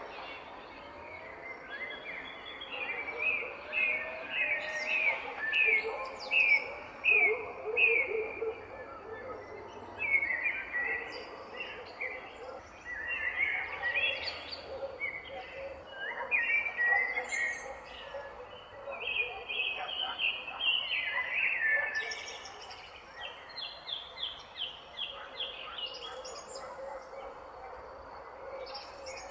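Several songbirds chirping and singing over a soft outdoor background, with runs of quick repeated notes now and then.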